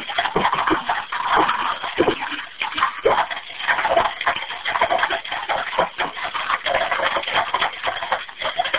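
A house fire crackling and popping, heard over an open 911 telephone line from a phone the trapped caller has dropped. The crackle is loud and irregular, with no voice on the line.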